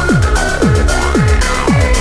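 Electronic dance music with a steady kick-drum beat and ticking hi-hats.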